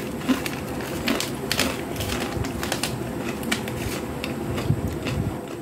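Crunchy Jolochip Carolina Reaper chip being chewed: many irregular crisp crunches and crackles close to the microphone.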